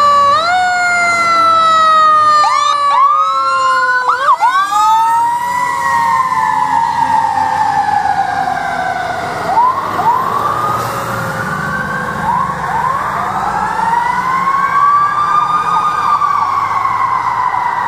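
Fire engine siren wailing as the truck drives by, with several sharp rises in pitch, each followed by a long slow fall.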